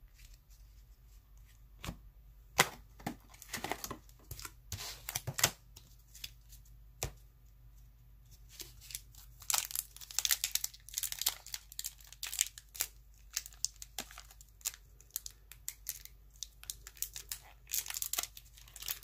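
A 1992 Fleer Ultra baseball card pack wrapper being torn and crinkled by hand, in irregular clusters of sharp crackling tears. The pack is stubborn and doesn't want to open.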